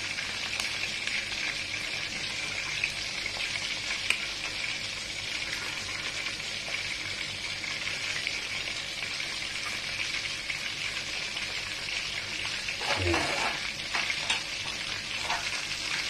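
Silkie black chicken pieces deep-frying in oil in a wok over low heat: a steady sizzle, with a few light clicks of a slotted metal ladle moving against the pan.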